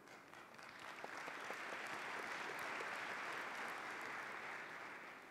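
Audience applause, fainter than the speech around it, building up about a second in and dying away near the end.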